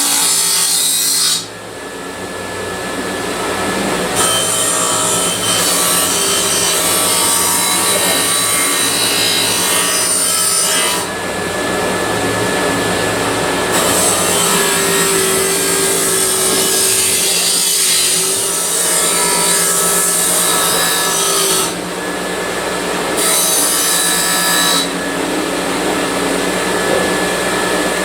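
Handheld power tool abrading the truck bed's sheet metal during rust repair. Its motor runs steadily while the rasping hiss comes and goes several times as the tool is pressed to the metal and eased off.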